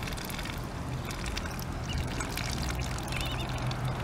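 Muscovy ducklings dabbling with their bills in wet mud, a busy crackle of small wet clicks and slurps, with one short duckling peep about three seconds in.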